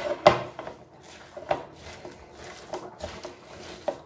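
Raw minced meat mixed with egg, onion and spices being kneaded and squeezed by hand in a bowl: about four wet squelches roughly a second apart, the first the loudest.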